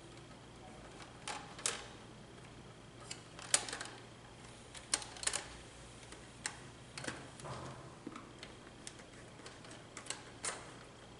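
Screwdriver and fingers working the terminal screws and wires of a Schneider TeSys LC1D09 contactor: a dozen or so small, irregular clicks and taps of metal on plastic and metal.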